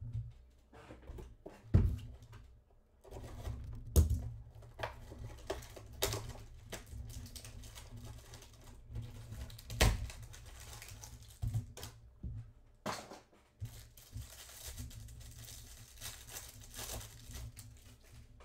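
Trading-card pack wrapper crinkling and being torn open by hand, with scattered sharp knocks and clicks as the pack and cards are handled. A longer spell of crinkling comes from about three quarters of the way through.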